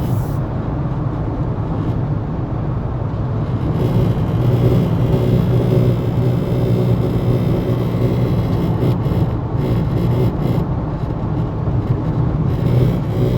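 Steady low buzz inside the cabin of a 2018 Honda Accord Touring 1.5 with the radio off, which the owner says sounds like it comes from the speakers. It gets a little louder about four seconds in.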